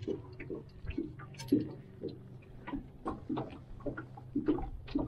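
Irregular light clicks and knocks as a freshly caught walleye is handled and lifted out of a landing net in a small boat, over a faint low steady hum.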